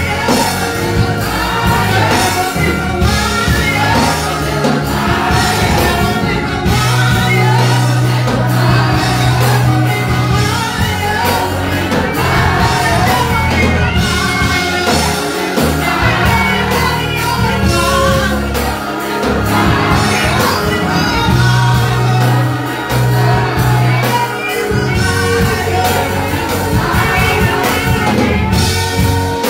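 Live gospel praise song: a woman sings lead through a microphone, a group of singers joins her, and a band plays under them with long held bass notes.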